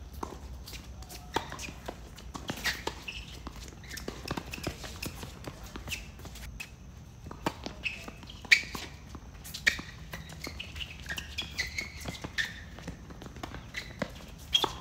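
Tennis balls struck by rackets and bouncing on a hard court during doubles rallies: scattered sharp pops, the loudest about eight and a half seconds in, with scuffing footsteps. Short high chirps come in a cluster a little past the middle.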